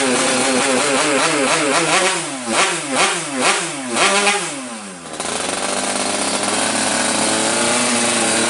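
Yamaha RX-King's two-stroke single-cylinder engine running at steady revs, then revved up and down in about four quick throttle blips. The revs fall away near the five-second mark and the engine settles back into a steady run.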